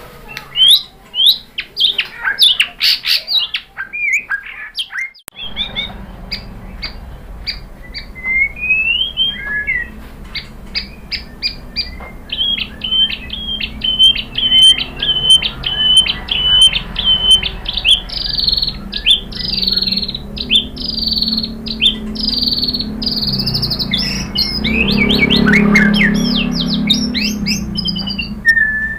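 White-rumped shama (murai batu) singing a long, varied song of sweeping whistles and sharp clicks, with a fast run of repeated notes partway through and then a string of falling whistles.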